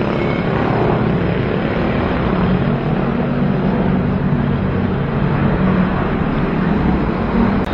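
Steady vehicle noise recorded on the move by an action camera's built-in microphone: a constant engine hum under a dense rush of wind and road noise, with no clear change in pitch.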